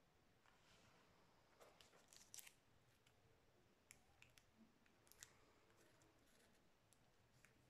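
Faint, scattered crinkles and light clicks of a plastic card sleeve and the cardboard watch box being handled as a card is lifted out.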